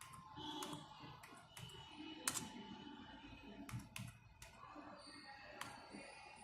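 Faint, irregular clicks of computer keys and buttons, a little more than one a second.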